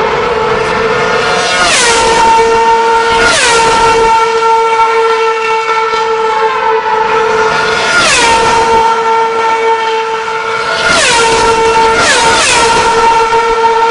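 Formula One cars passing at speed, their high, screaming engine notes dropping sharply in pitch as each goes by. About six cars pass: two early on, one in the middle and three close together near the end, with a steady engine whine from approaching cars in between.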